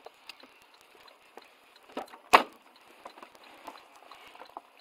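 Inside a stopped car: faint scattered clicks and small knocks over a quiet background, with one sharp knock a little over two seconds in.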